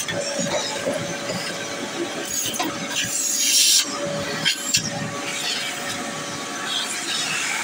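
Rustling and scraping handling noise as the phone is moved against plasterboard and the metal frame, with a louder scrape about three seconds in and a faint steady hum underneath.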